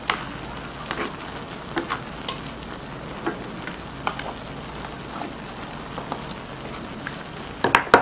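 Shrimp cooking in sauce in a frying pan: a steady sizzle with scattered pops and crackles. A spoon stirs the pan briefly at the start.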